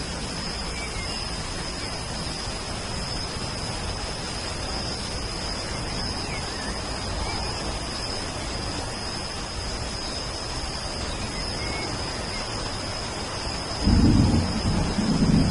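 Steady rain falling, with a steady high-pitched tone and a few faint bird chirps; near the end a sudden low rumble of thunder breaks in loudly.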